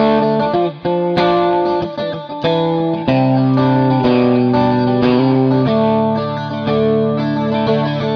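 Electric guitar played through a Danelectro Money Laundry rotary-speaker simulator pedal: strummed, sustained chords with a swirling modulation, changing chord about three seconds in and again near six seconds.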